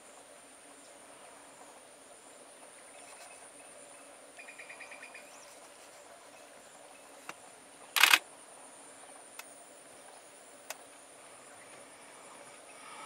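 Steady high-pitched insect chorus of crickets, with a brief rapid run of about eight chirps some four and a half seconds in and a single loud, sharp knock about eight seconds in.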